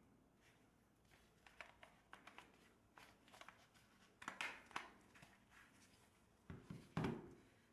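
Faint handling sounds of a Fluke 17B+ multimeter being pressed back into its yellow rubber holster: a few soft scrapes and light knocks of rubber and plastic, loudest about four seconds in and again near the end.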